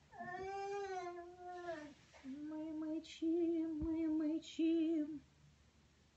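A person humming a tune with closed mouth: one long wavering note, then a run of shorter held notes, stopping about five seconds in.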